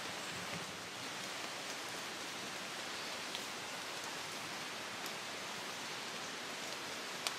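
Rain falling steadily through woodland, an even hiss with a few separate drops ticking close by.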